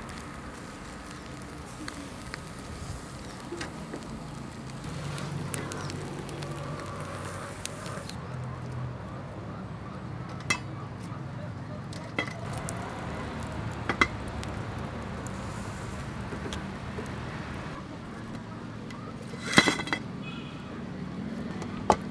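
Skewered cuttlefish grilling over a brazier with a low, steady crackle and hiss, broken by a few sharp clinks of skewers and utensils against metal bowls and the grill rack, a couple in quick succession near the end.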